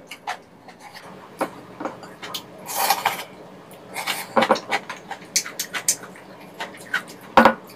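Someone eating soupy rabokki noodles with chopsticks: short slurps and mouth noises, with sharp clicks of the chopsticks against the pot and plate.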